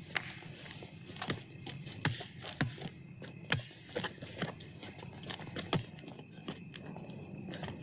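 Basketball being dribbled on an outdoor court: a run of short bounces with a low thud, coming irregularly about every half second to a second.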